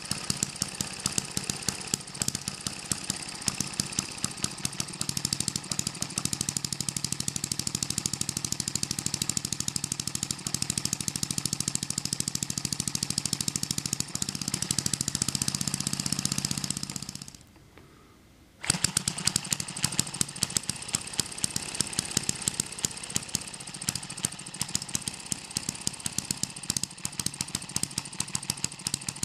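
Eachine ET6 single-cylinder hit-and-miss model engine running: a fast, even mechanical clatter with regular sharper firing strokes. About two-thirds of the way through, the sound drops out for about a second, then returns at once at the same pace.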